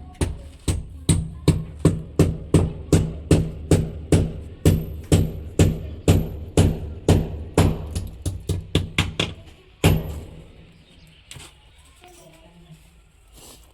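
Background music with a steady drum beat of about two and a half hits a second over a low bass, stopping on a final hit about ten seconds in.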